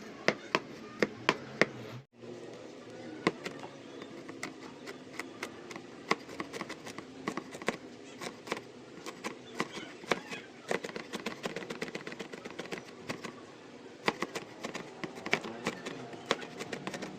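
Knife chopping on a cutting board: sharp strokes about two a second at first, then quicker and more irregular.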